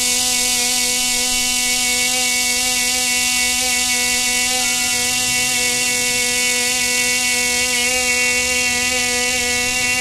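Loud, steady cicada buzz: a constant droning hum with a hissing top, unchanging throughout.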